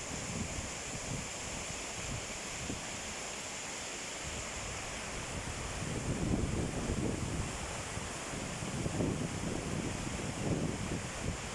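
A fast, turbulent small river pouring over a waterfall: steady rushing water. Gusts of wind buffet the microphone a couple of times in the second half.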